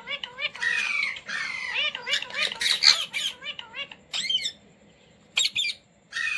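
Indian ringneck parakeet squawking and chattering in a rapid run of harsh calls, then a few shorter calls with brief pauses in the second half.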